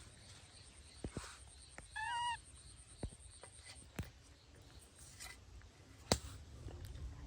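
A short, wavering, pitched animal call about two seconds in, with a few sharp clicks or knocks scattered before and after it.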